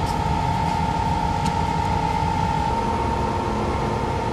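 Steady industrial plant machinery noise: a dense low rumble with a constant high whine, which dips slightly in pitch a little over halfway through.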